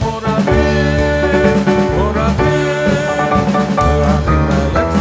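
Background music: a band tune led by guitar over a steady bass line.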